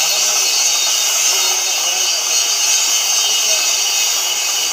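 CNC cutting torch burning through thick steel plate: a loud, steady hiss of the cutting jet.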